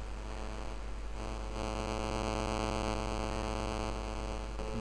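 Steady electrical mains hum on the recording, joined about a second in by a stronger buzz with hiss.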